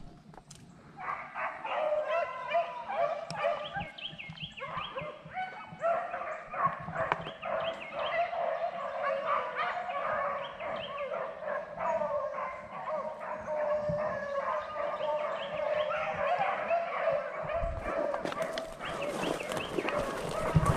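A pack of beagles baying continuously while running a rabbit, several dogs' voices overlapping. Near the end, brush rustles close by.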